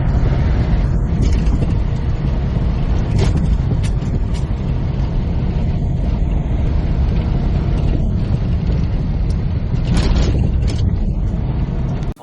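Steady low rumble of a semi truck on the road, its engine and road noise heard as a constant drone, with a few brief knocks or rattles.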